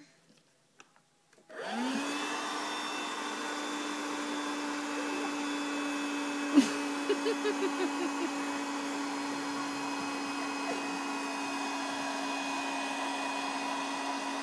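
A household appliance's electric motor switched on about a second and a half in, spinning up quickly into a steady whirring drone with a constant hum.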